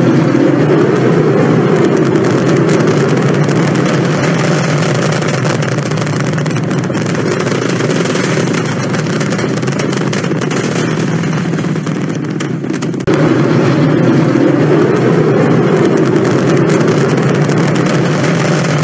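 Rocket launch noise: the engines and boosters giving a loud, steady rushing rumble during lift-off and climb. About thirteen seconds in the sound dips and then cuts straight back in at full level.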